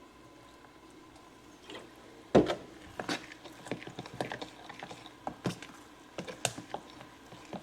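Spoon stirring cornbread batter in a bowl: a knock against the bowl a little over two seconds in, then irregular light clicks and taps as the stirring goes on.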